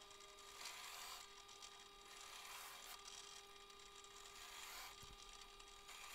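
Benchtop drill press running with a steady hum, a countersink bit cutting briefly into plywood hole after hole, a short cut every second or two, countersinking the holes so their edges won't chip.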